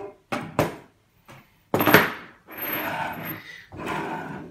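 Metal parts of a 3D printer's Z-axis platform assembly being handled on a wooden table: two sharp knocks, a louder clatter about two seconds in, then scraping and rubbing of metal against metal and wood.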